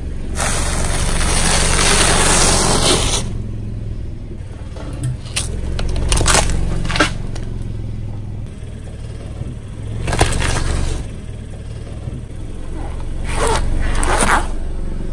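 A car tyre rolling over a long row of stacked thin crispy wafers, making a dense crackling crunch for about three seconds. Several separate sharp cracks follow as further objects are crushed, over a low steady engine hum.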